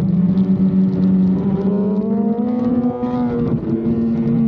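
BMW S1000RR's inline-four engine running hard, heard onboard, its pitch climbing steadily through the middle and dipping slightly about three and a half seconds in.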